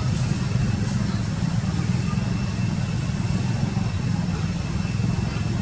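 A motorbike engine idling with a steady low rumble, and a faint thin high tone held steadily above it.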